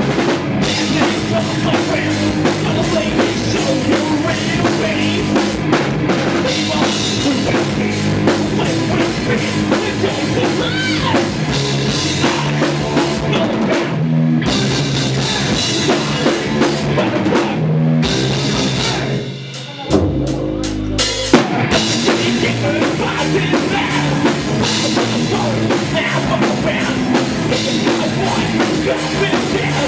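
A rock band playing live, with drum kit and electric guitars. About two-thirds of the way through the band breaks off briefly, leaving a low bass note, then the full band comes back in.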